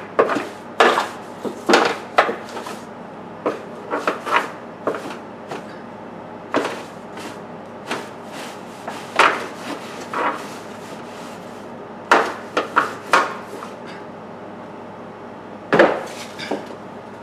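Irregular knocks, taps and short scrapes of hard objects being handled and struck, often two to four in quick succession, over a faint steady low hum.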